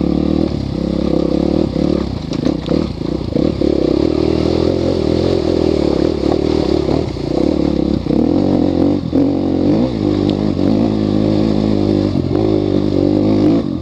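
Enduro motorcycle engine running hard, its pitch rising and falling with the throttle, with a dip and climb back about two-thirds of the way through. Short knocks and clatter break in throughout as the bike rides over riverbed stones.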